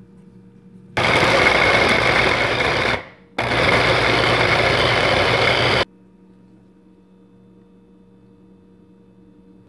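Electric mini food chopper running in two bursts of about two seconds each with a short pause between, its blade chopping onion, garlic and ginger; the motor cuts off suddenly each time.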